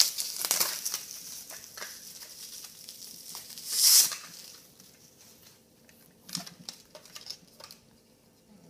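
Packaging of a marker set being handled and opened: rustling with scattered clicks and taps, loudest in a burst about four seconds in, then a few sparse taps.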